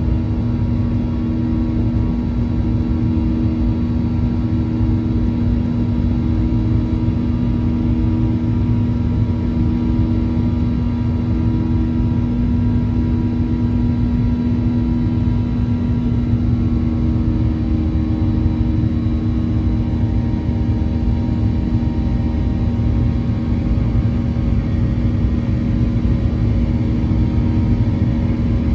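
Steady engine drone and hum inside a jet airliner's cabin as it climbs after takeoff. The higher of two steady tones in the hum fades out about halfway through.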